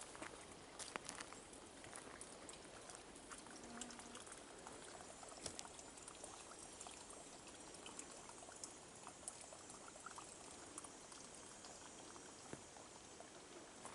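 Faint footsteps crunching and rustling through freshly mown brush and grass on a trail, as a string of small irregular crackles over a low hiss.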